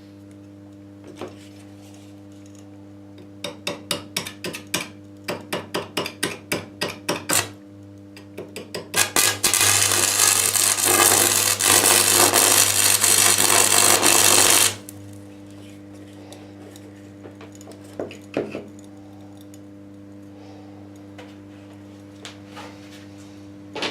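Metalworking on a steel plate and pipe: a run of sharp taps, about three a second, then about five seconds of loud, harsh grinding or arc noise that stops abruptly. A steady electrical hum runs underneath throughout.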